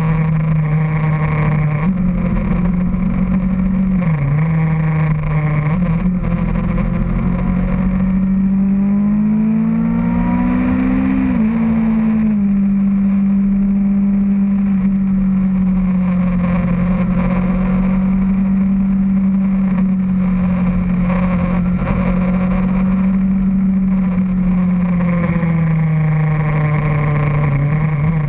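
Motorcycle engine running at steady cruising revs, heard from the bike itself. Its pitch climbs about ten seconds in and falls back sharply a second later, with brief dips in revs near four seconds and near the end.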